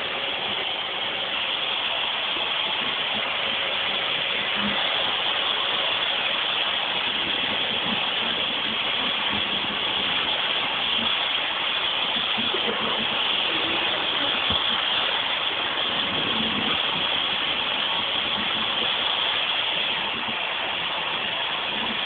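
Vacuum cleaner running steadily, an even whooshing motor noise.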